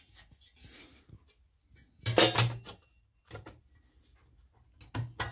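Sheet-metal cover of a Tesla Model S instrument-cluster module being set onto its housing and pressed into place: a sharp metallic clatter about two seconds in, a softer knock later and a shorter one near the end, with light handling noise between.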